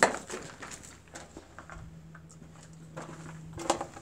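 Footsteps crunching on a gravel-strewn dirt floor: a few scattered steps and scuffs, with a faint steady hum for about two seconds in the middle.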